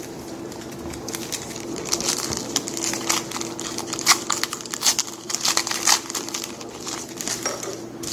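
Trading-card pack wrapper being torn open and crinkled by hand, a run of quick irregular crackles.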